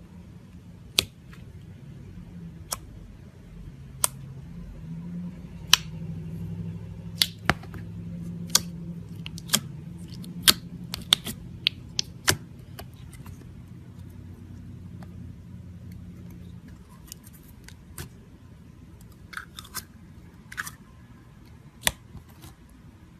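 Slime being handled, giving sharp, irregular clicking pops, densest in the middle, over a low steady hum.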